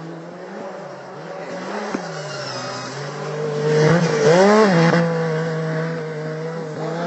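Racing snowmobile engine running at speed with a steady high drone. It swells loudest as it passes close about four seconds in, with a brief rise and fall in pitch.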